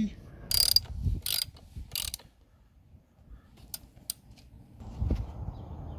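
A ratchet clicking in three short spells, then two sharp metal clicks, as a dirt bike's brake pedal pivot bolt is done up.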